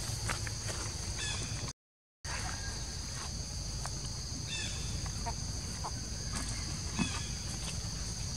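Steady high-pitched insect drone of cicadas or crickets, with short descending chirping calls now and then. The sound cuts out completely for a moment about two seconds in.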